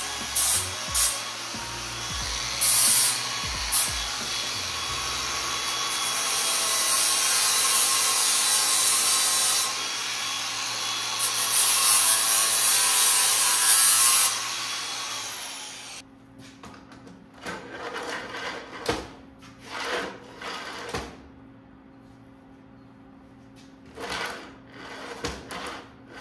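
Cordless angle grinder cutting off a steel pin: a few short bursts, then one long continuous cut that stops suddenly about two-thirds of the way through. After it, scattered knocks and clunks as a chainsaw is set into its steel holster mount.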